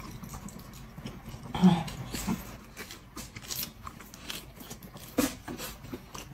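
Two people biting and chewing food close to the microphone: soft wet mouth noises and small crunches, with a brief hummed "mm" about one and a half seconds in.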